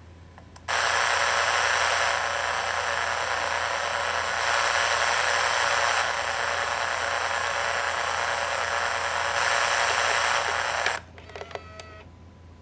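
A loud steady hiss like static starts abruptly under a second in and cuts off suddenly about ten seconds later, followed by a few brief squeaks, over a low steady hum.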